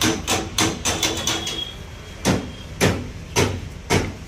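Sharp knocks: a quick run of about six in the first second and a half, then single blows at a steady beat of about two a second.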